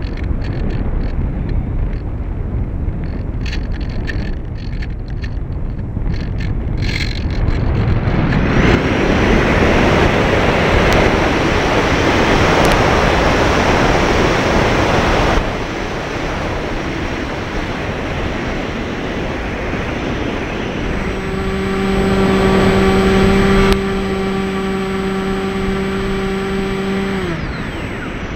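Airflow rushing over the nose-mounted camera of a Multiplex Easystar RC plane, swelling to a loud rush about eight seconds in and dropping off abruptly a few seconds later. Near the end the plane's brushless outrunner motor hums at a steady pitch for about six seconds, then falls in pitch as it is throttled back.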